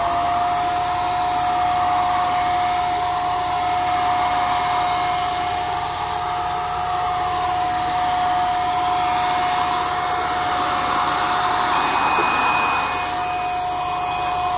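Handheld electric HVLP paint sprayer running steadily, its turbine motor giving a constant whine over a rush of air as it sprays paint. A second, higher tone joins about twelve seconds in.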